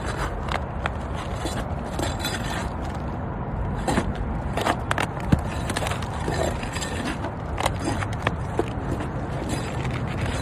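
Pry bar scraping and knocking against asphalt roof shingles and nails as a shingle is worked loose for removal, in irregular clicks and scrapes over a steady low rumble.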